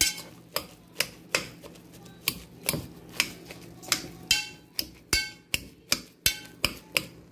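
Metal fork mashing boiled potatoes in a steel pot: sharp, irregular clinks of the fork against the pot, about two a second, some with a short metallic ring, as the lumps are worked out.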